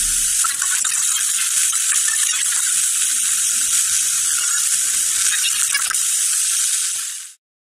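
Loud, steady static hiss, the white noise of an untuned receiver, cutting off suddenly near the end.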